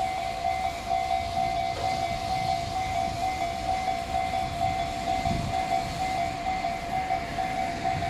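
Japanese level-crossing warning bell ringing continuously, a rapid, evenly repeated electronic ding, over the low rumble of an electric commuter train rolling slowly past.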